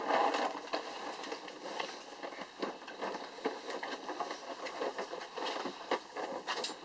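Young Labrador retriever puppies scrabbling about: a continuous, irregular run of small clicks, scratches and rustles from paws and claws.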